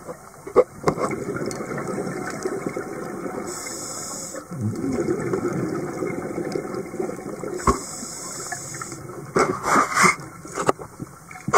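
Scuba diver's regulator breathing heard through an underwater camera housing: a hiss of inhalation twice, with a low gurgle of exhaled bubbles between. A few sharp knocks, clustered near the end.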